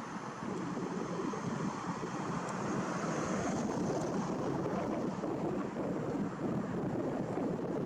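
Wind buffeting the camera microphone: a steady, rough rumble with no voices.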